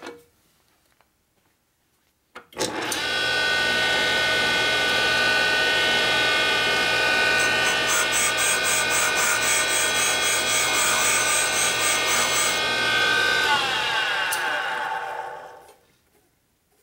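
Valve refacing machine switched on: the motor, grinding stone and valve chuck run with a steady whine. In the middle, a fast, even ticking grind is heard as the stone cuts the valve face. The machine is then switched off and winds down with a falling whine.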